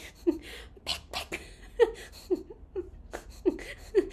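A woman laughing: a run of short, breathy giggles, each falling in pitch, about two a second.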